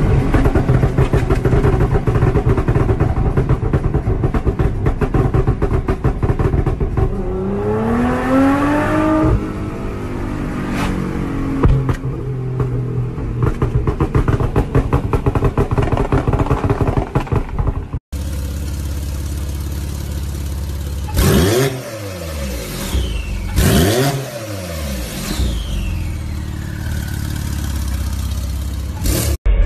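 Car engine running hard and revving up, its pitch rising over about two seconds a third of the way in. After a cut, a steady low engine rumble with two vehicles passing fast, each dropping in pitch as it goes by.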